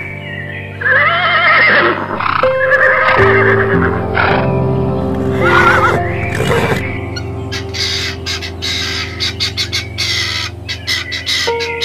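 Background music with steady held notes, over which a bird gives short wavering calls about a second in, around three seconds and near six seconds, followed later by a quick run of short, sharp calls.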